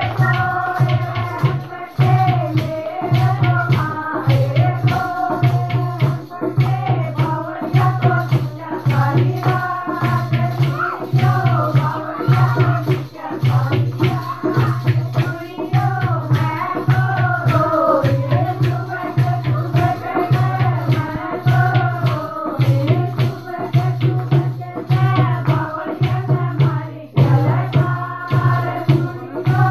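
Women singing together to a steady, regular drum beat, with hand clapping and a rattling, jingling percussion running through it.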